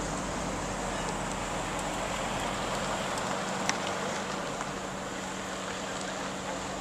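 Steady outdoor background noise: an even hiss over a low steady hum, with a few faint ticks and one sharper click a little past halfway.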